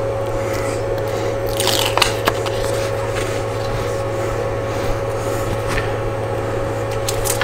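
Rustling and crackling as the peel-off backing is handled on a flexible adhesive-backed magnetic sheet, with the loudest bursts about two seconds in and near the end. A steady low hum runs underneath.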